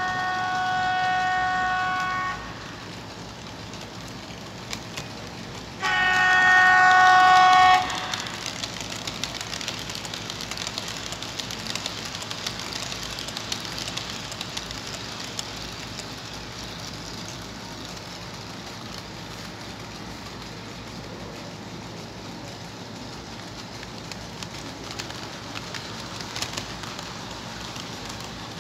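H0-scale model locomotive's sound-decoder horn sounding twice, two steady chord-like blasts of about two seconds each, the second louder. After that comes the steady rolling hiss and light clicking of model wagons running past on the track.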